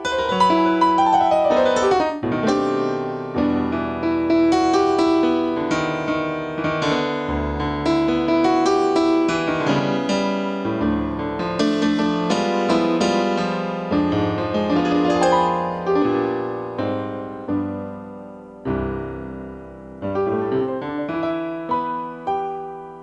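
Solo piano music at an unhurried pace: melody notes over sustained chords, each note struck and then fading.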